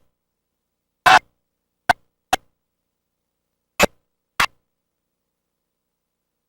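Faulty recording audio cutting out to dead silence, with only five brief fragments of sound getting through, each a fraction of a second long, over the first four and a half seconds.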